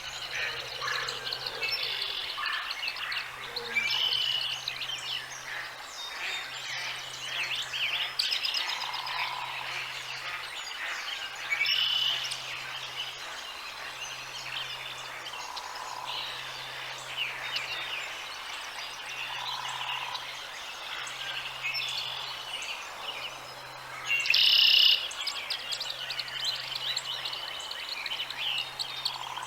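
A chorus of birds chirping and calling over one another, short high chirps and trills throughout, with a soft lower call every few seconds and one louder call a little over three-quarters of the way through.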